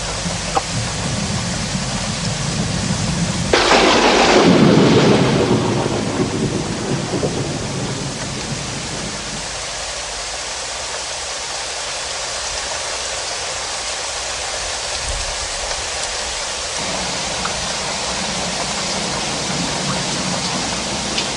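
Steady heavy rain of a thunderstorm, with one clap of thunder about three and a half seconds in that starts sharply and rumbles away over a few seconds.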